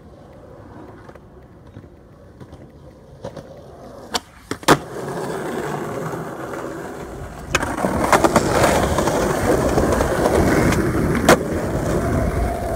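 Skateboard wheels rolling over rough asphalt, the rumble growing louder partway through. Two sharp board clacks come about four seconds in, and another a little before the end.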